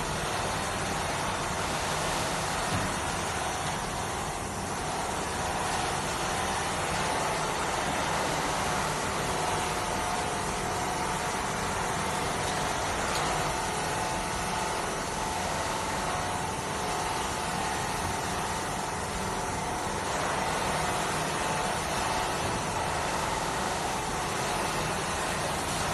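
Automatic metal-polishing machine running, its polishing wheel and motors giving a steady whirring noise with a faint hum, unchanging throughout.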